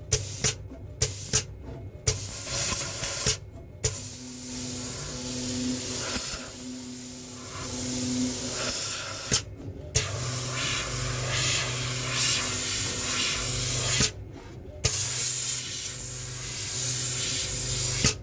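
Automatic conformal coating machine's spray nozzle hissing as it sprays coating, switching on and off in bursts with short abrupt gaps. A faint low hum pulses about four times in the middle.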